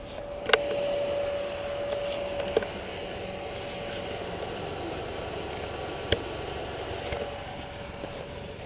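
Steady road traffic noise with a hum, broken by three sharp clicks.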